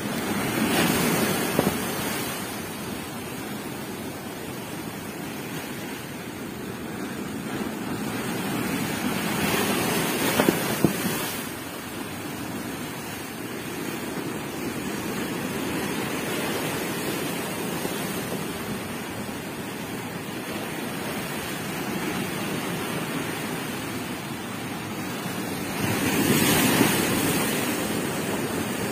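Strong waves breaking on the shore in a rough sea: a continuous wash of surf that swells into loud crashes about a second in, around ten seconds in, and again near the end.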